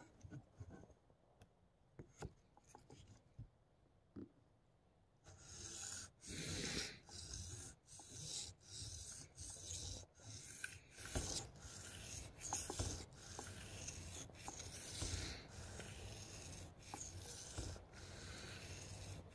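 Spyderco PM2 Wharncliffe knife blade being stroked by hand across a wet sharpening stone, making a faint scraping rasp. It starts about five seconds in and repeats at roughly two strokes a second.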